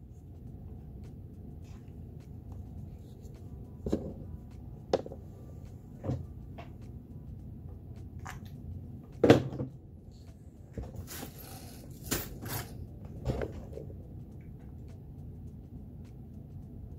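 Small tools and parts being handled on a workbench: scattered clicks and knocks, the loudest about nine seconds in, with a short rustle around eleven to twelve seconds, over a faint steady hum.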